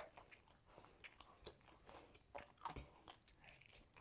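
A person eating close to the microphone, biting and chewing a meal of grilled chicken with salad: irregular mouth clicks and crunches, with louder bites about one and a half and two and three-quarter seconds in.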